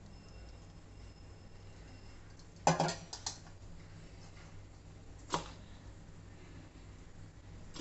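Kitchen utensils knocking on a stainless-steel bowl: a quick cluster of three or four sharp knocks about three seconds in as the plastic tea strainer is lifted away, then a single knock about two seconds later, over a low steady background hum.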